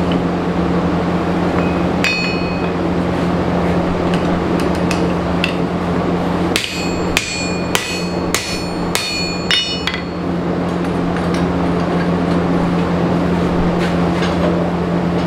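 Forge running steadily with a constant low hum while steel plates heat in it. A single ringing metal-on-metal strike comes about two seconds in, and a little past the middle a run of six or seven ringing strikes on steel, about two a second.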